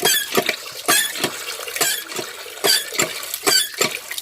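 Hand-operated water pump (poso) being worked, its handle squeaking two or three times a second as water gushes out strongly. The pump's plunger seal has just been replaced with a piece of rubber slipper, and it now draws water well.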